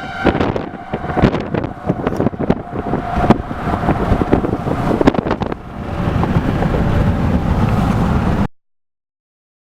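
Wind buffeting the microphone, with many sharp knocks and crackles over the first few seconds and a faint steady tornado-siren tone underneath. The wind rumble grows heavier near the end, then the sound cuts off suddenly.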